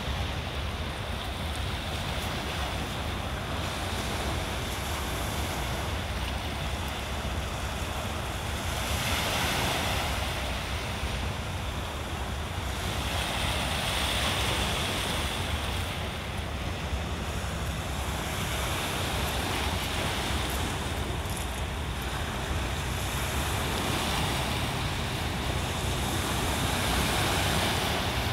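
Small waves breaking and washing back over a pebble shore, swelling every few seconds, with wind rumbling on the microphone.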